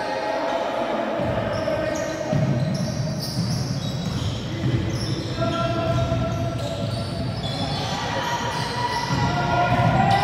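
Basketball game sound in a large gym: a ball bouncing on the hardwood court, with players' shouts and calls echoing in the hall.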